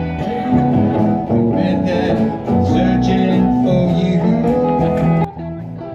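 Small live band playing: acoustic guitars over a bass guitar. The sound drops suddenly in level about five seconds in.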